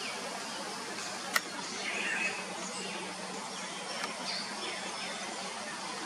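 Steady outdoor background noise with a faint low hum, over which faint, distant bird chirps come and go. A single sharp click about a second and a half in is the loudest sound, with a short, harsher call just after two seconds and a smaller click near four seconds.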